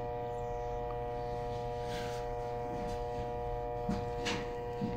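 Steady electrical hum with a buzzing, several-toned whine above it, holding at an even level throughout.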